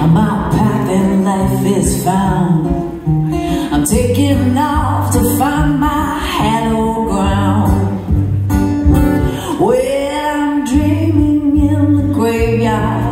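A woman singing a song live, accompanying herself on acoustic guitar.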